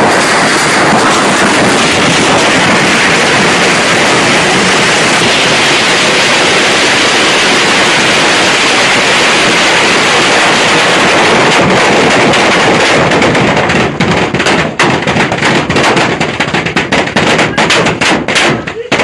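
A long string of firecrackers going off at close range, bangs so rapid that they merge into one dense, loud crackle. About two-thirds of the way through it thins into separate sharp cracks in quick succession.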